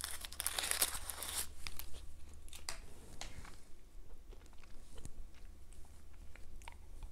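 Foil wrapper of a Mon Chéri chocolate crinkling as it is peeled open for about the first second and a half, then a few scattered faint crackles and clicks.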